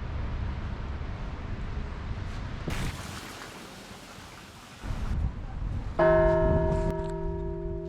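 Wind-like noise, then a single bell strike about six seconds in, its deep tone ringing on and slowly fading; this is the loudest sound.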